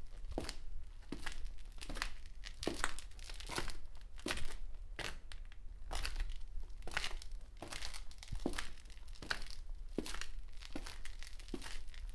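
Footsteps walking at a steady pace, each step a short scuffing crunch, about one and a half to two steps a second.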